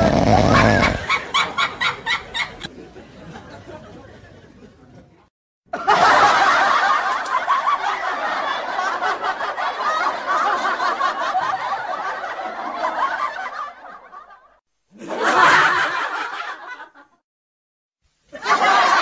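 People laughing: quick rhythmic pulses that fade over the first few seconds, then, after a short silence, a long fit of laughter lasting about eight seconds, and two shorter bursts near the end.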